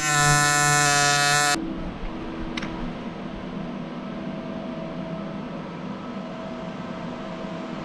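AC TIG welding arc on thick aluminium, a loud buzz that cuts off about a second and a half in. After it, a steady low hum continues.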